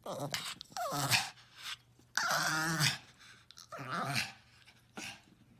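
Small terrier-type dog making gremlin sounds: about four grumbling, warbling calls whose pitch bends and wavers, the longest and loudest about two seconds in.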